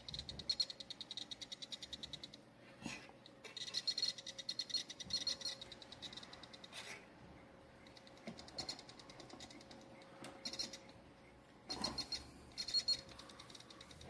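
Satellite finder's signal buzzer chirping faintly in rapid pulses, about eight a second, coming and going in spells as it picks up the bursty Wi-Fi signal, with a couple of sharp handling clicks in between.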